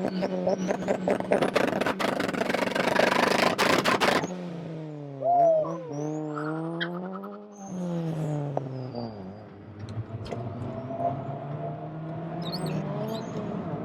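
Car engine revving. It is held at high revs for about four seconds, drops suddenly, rises and falls a couple of times, then settles to a lower, steady running speed.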